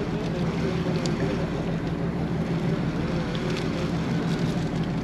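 Tour boat's engine running steadily with a low, even hum, with wind on the microphone.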